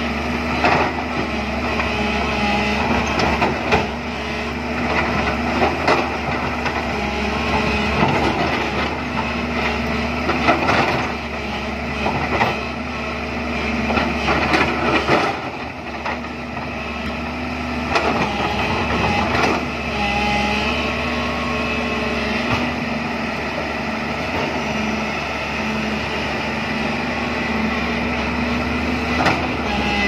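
Diesel engine of a JCB tracked excavator running steadily under load while its bucket digs into a rocky hillside, with irregular knocks and clatter of rock and soil.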